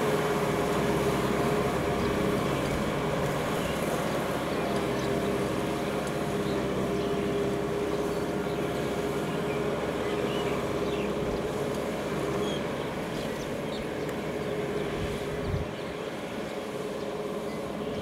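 Kubota M6040SU tractor's four-cylinder diesel engine running steadily under load while it pulls a disc plough through wet paddy soil. It grows a little fainter over the last few seconds.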